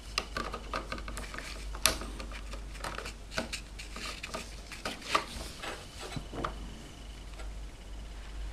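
Scattered small clicks and taps of a RAM module being handled and pushed toward a memory slot, with the sharpest click about two seconds in.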